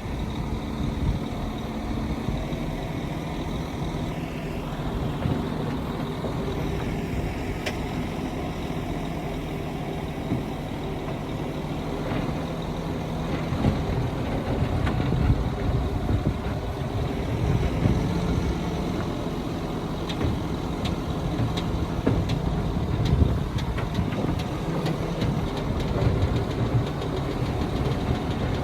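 Heavy diesel engine of earthmoving machinery running steadily, growing somewhat louder in the second half, with scattered light clicks later on.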